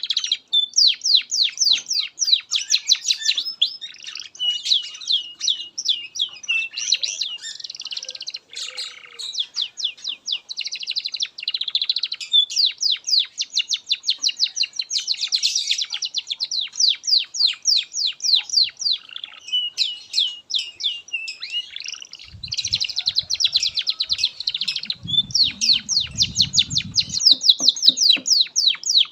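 Domestic canary singing a long, continuous song of rapid trills, fast runs of repeated high notes with brief breaks between phrases. A low rumble sits underneath for a few seconds near the end.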